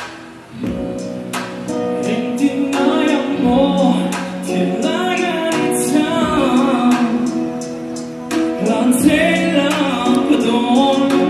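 A man singing a song into a microphone, over steady instrumental accompaniment.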